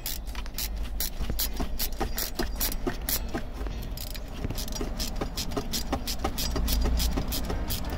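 Ratchet spanner clicking rapidly and evenly, about five clicks a second, while an M8 nylock nut on a Land Rover diff-lock selector shaft is tightened.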